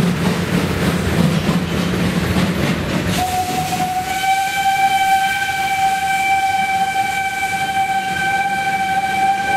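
Ty42 steam locomotive pulling out, with a rumbling hiss of steam and rolling wheels. About three seconds in, a long, steady single-note whistle starts, rising slightly at its onset, and holds to the end.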